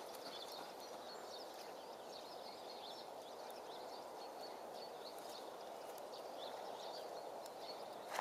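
Small birds chirping over a steady, faint outdoor hiss.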